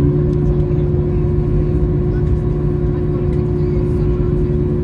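Steady aircraft cabin noise of an Airbus A321: a loud rumble of engines and airflow with a few steady humming tones, a deeper hum coming in right at the start.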